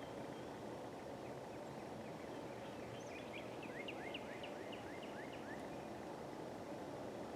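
A bird calls a quick run of about ten short, falling notes, starting about three seconds in and lasting under three seconds, over steady wind noise.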